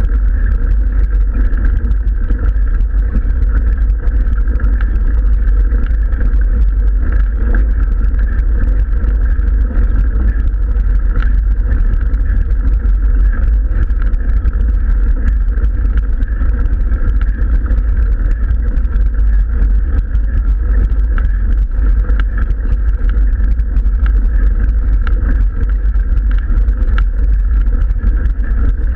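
Mountain bike climbing a gravel road, heard through the mounted action camera: a loud, steady low rumble of tyres on gravel and vibration through the mount, with no breaks.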